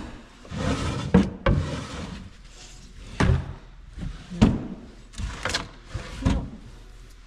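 Rummaging through shop storage in search of gloves: a string of about seven separate knocks and thumps as things are moved and doors or drawers are handled.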